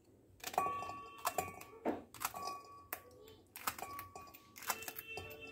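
Irregular quick clicks and taps, with steady ringing tones joining in and growing near the end.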